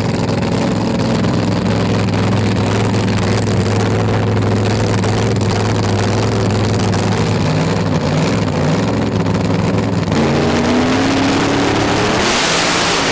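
Supercharged big-block V8 of a Pontiac Firebird funny car idling with a steady low drone. About ten seconds in its note shifts and climbs, and near the end it is revved hard with a loud rushing roar.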